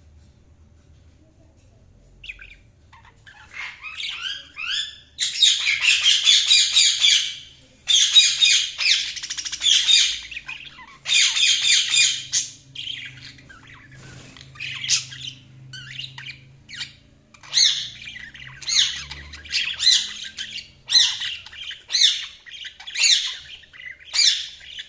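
Budgerigars chirping and chattering: a quiet start, then a few chirps, then several seconds of dense, high warbling chatter, then single short squawky calls about one a second.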